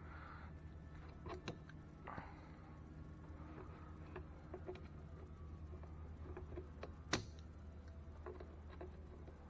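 Faint clicks and light taps of small tools and parts being handled, with one sharper click about seven seconds in, over a low steady hum.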